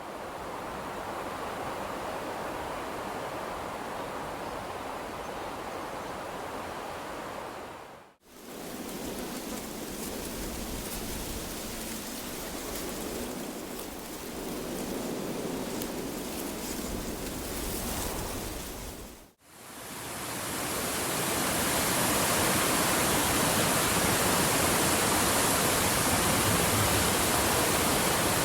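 Three wind sound effects one after another, each a steady blowing wind noise, separated by brief drops to silence about eight and nineteen seconds in. The third is louder, with more high hiss.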